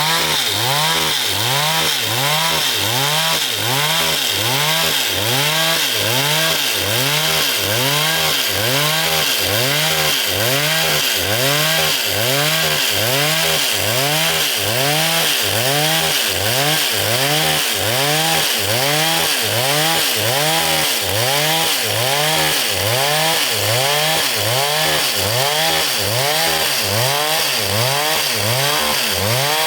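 A powered saw cutting through timber, running steadily with a regular pulsing beat about one and a half times a second, each beat rising and falling in pitch.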